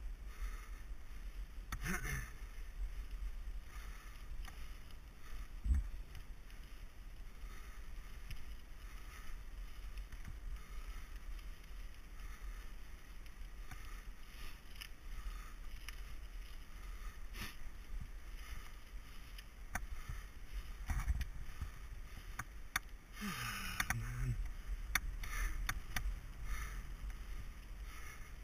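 Mountain bike ridden down a gravel forest singletrack, heard from a camera on the bike or rider: steady tyre-on-gravel rumble and wind buffeting on the microphone, with scattered clicks, knocks and rattles as the bike goes over bumps.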